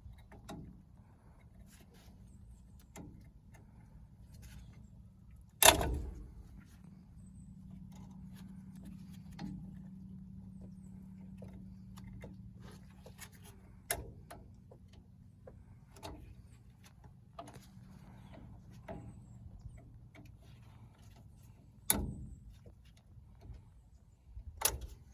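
Hand tools and metal brake parts clicking and clanking during a rear drum brake teardown, with a few sharp knocks, the loudest about six seconds in. A faint steady low hum runs underneath through the middle.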